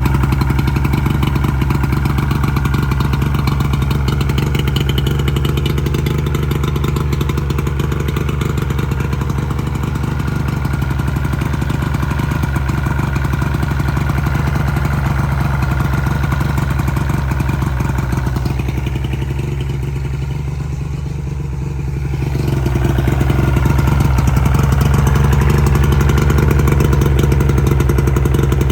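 Three-cylinder two-stroke outboard motor running steadily. It drops back slightly about eighteen seconds in, then picks up and runs harder from a little after twenty-two seconds.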